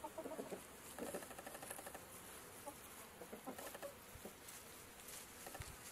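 Chickens clucking faintly in short, rapid trilling runs, the low contented calls of hens foraging.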